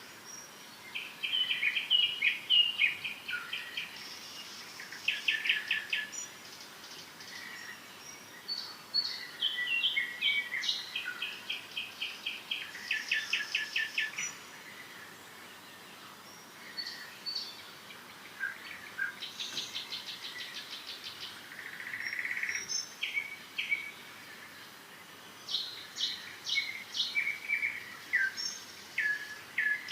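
Songbirds singing and chirping: short chirps and fast trills of rapidly repeated notes, one phrase after another with brief pauses between.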